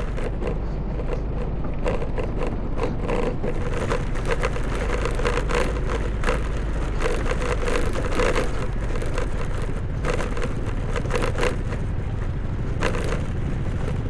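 A two-wheeler riding slowly over rough ground, its tyres crunching and crackling over the surface, with the engine running as a steady low hum underneath.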